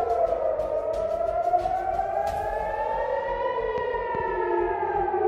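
Civil-defence air-raid sirens wailing, at least two of them out of step with each other, each slowly rising and falling in pitch: the alert for an incoming missile attack.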